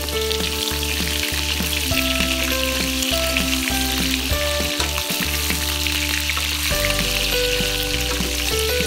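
Pork belly cubes sizzling in hot oil in a wok as they are stirred and turned with a wooden spatula. Background music with a bass line and held notes plays under the sizzle.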